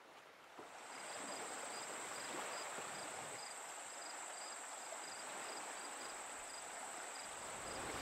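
Insects: a steady high-pitched drone with a cricket-like chirp repeating regularly, about two to three times a second, over a soft hiss. It fades in over the first second.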